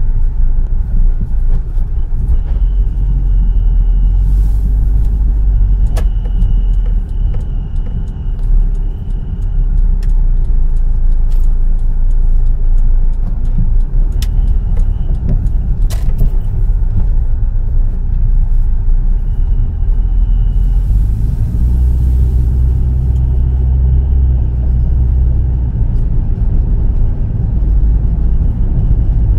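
Proton Gen-2 car running with a steady low rumble, and a thin high whistle that comes and goes several times: a whistle whose source the owner cannot trace. A couple of sharp clicks.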